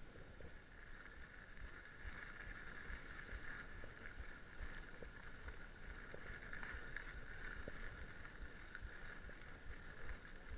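Mountain bike rolling over a grass and gravel trail, heard from its handlebar: a steady rolling noise with low knocks and small rattles from the bumps, a little louder from about two seconds in.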